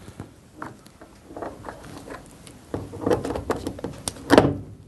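Plastic door latch being fitted into a tumble dryer door: scattered light clicks and handling knocks, with one louder knock near the end.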